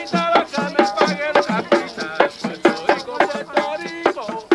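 Puerto Rican plena: hand-held pandero frame drums struck in a quick, even rhythm, with a metal güiro scraped along and a man singing in Spanish over them.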